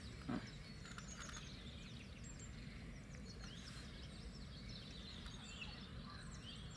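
Outdoor ambience of many small birds chirping and twittering, over a steady low rumble. A brief soft sound comes just after the start.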